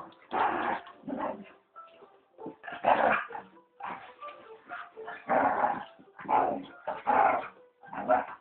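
Dogs fighting, barking and yelping in loud, irregular bursts about once a second.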